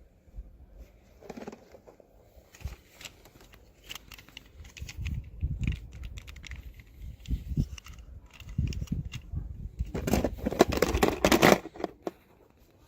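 Hands unboxing miniature toys: scattered clicks, taps and crinkles of packaging, with a louder stretch of rustling about ten seconds in.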